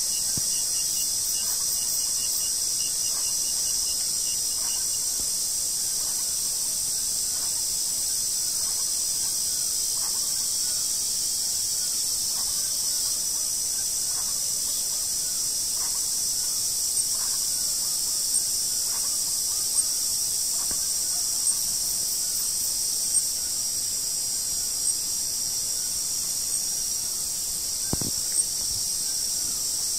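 Dense chorus of night insects such as crickets, a steady high-pitched shrilling. A faint rapid pulsing call sounds over it for the first few seconds, and light sharp clicks come every second or two in the second half.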